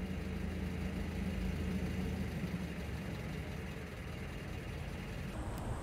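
Steady low engine hum with a droning tone, like a vehicle idling, which changes abruptly near the end.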